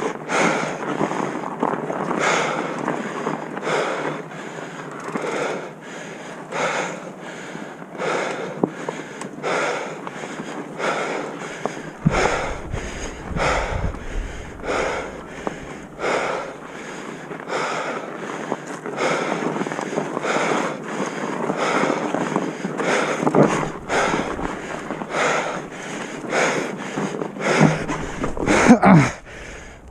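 A person breathing hard and rhythmically from exertion, about one breath every second or less. A low rumble comes in twice, around the middle and again near the end.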